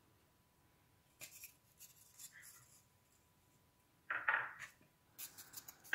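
Faint light clicks and taps of miniature bricks and brick wall sections being handled and set down on a plywood base, with a brief louder scuff about four seconds in.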